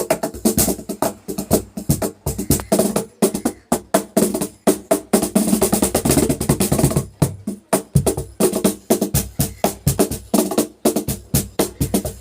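Cajon played by hand in a quick, steady rhythm: sharp slaps over deep bass thuds, with a fast roll of strikes about halfway through.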